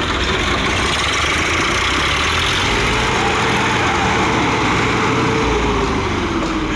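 Swaraj diesel tractor engines running hard under heavy load in a tug of war, pulling against each other on a tow cable. The engine note falls near the end.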